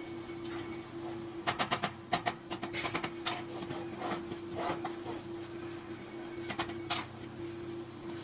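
Clusters of sharp knocks and clicks, typical of metal parts being handled and tapped during fabrication, over a steady hum. The knocks come in a quick run early on, another a second later, and a last pair near the end.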